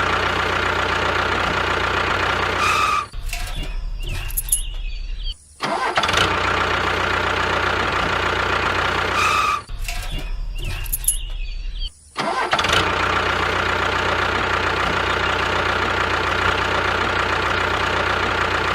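An engine running steadily, broken by several abrupt cuts between segments of differing sound.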